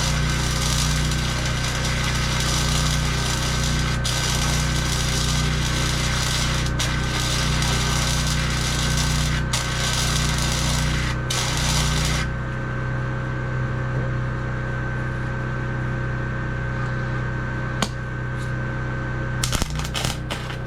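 Handheld power tool working on sheet-metal truck compartment doors, running steadily and stopping about twelve seconds in. A low steady hum carries on under it throughout, and the tool starts up again near the end.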